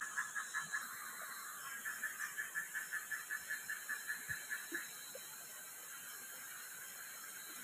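A night animal's rhythmic pulsing call, about six even pulses a second: a brief run at the start, then a longer run of about three seconds ending near the five-second mark. It sits over a steady high hiss.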